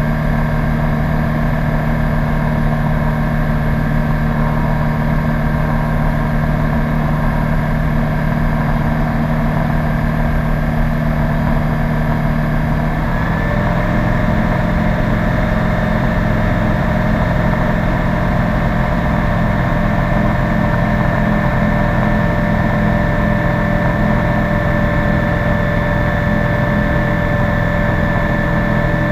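Rotax 912 four-cylinder engine of a PS-28 Cruiser light aircraft running steadily. About halfway through, the engine note shifts to a slightly different pitch and then holds steady again.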